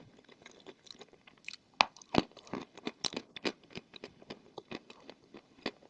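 Close-up crunching and chewing of wet white chalk with clay paste: a run of irregular sharp crunches, the loudest two around two seconds in.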